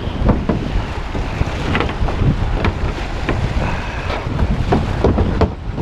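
Strong, gusty wind buffeting the microphone in a loud low rumble, over waves washing and splashing against a rocky lakeshore.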